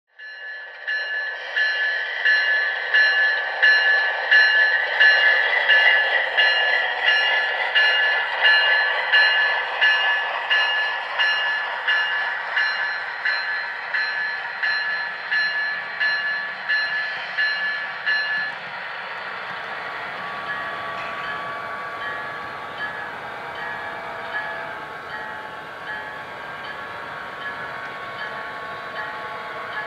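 A train bell rings over and over in a steady rhythm, loud and clear, for about the first 18 seconds. After that, a quieter, steady running-train sound continues, with fainter ringing tones.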